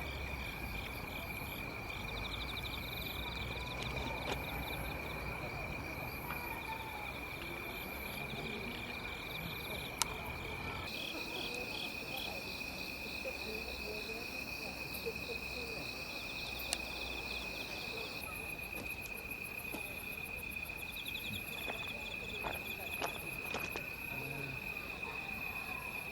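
Chorus of night insects: a steady high-pitched trill with several rhythmic pulsing chirps layered over it, and a few faint clicks.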